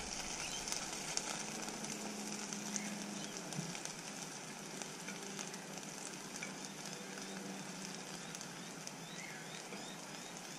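Potato wedges sizzling steadily in hot olive oil in a frying pan, with small clicks of a fork turning them over.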